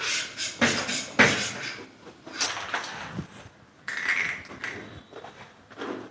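A plastic instant-noodle packet rustling and crinkling in irregular bursts.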